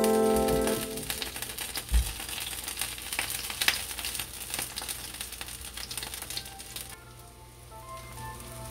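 Battered fresh aralia shoots frying in soybean oil in a frying pan: a steady crackling sizzle. Background music plays over the first second and returns faintly near the end, and there is a single low thump about two seconds in.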